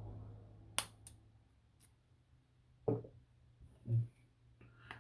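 Padlocks being handled: a sharp metal click about a second in, two lighter clicks after it, then two dull knocks as locks are set down or moved.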